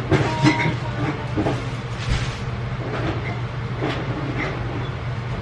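Groceries being unpacked and put away: scattered rustling and knocks, loudest near the start, over a steady low hum.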